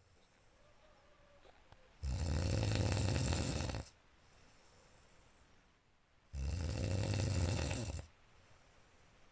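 A sleeping person snoring loudly: two long snores about four seconds apart, each lasting nearly two seconds, with quiet breathing between.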